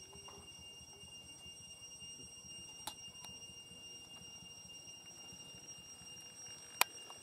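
A faint, steady high-pitched whine throughout, with a few sharp clinks of a metal spoon and steel bowls while rice is served, the loudest near the end.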